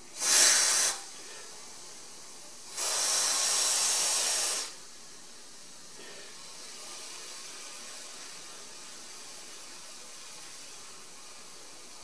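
Aerosol can of pipe-freeze spray hissing as it is sprayed into an insulation cup around a 15 mm copper pipe to freeze an ice plug: a short burst at the start, then a longer burst of about two seconds a couple of seconds later.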